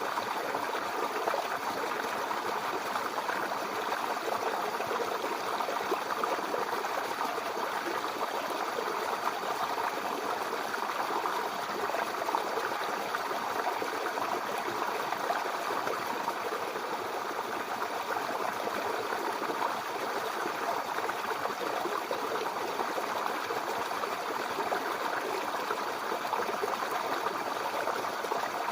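Babbling brook: shallow water running and burbling over stones, a steady, unbroken rush with fine splashing texture.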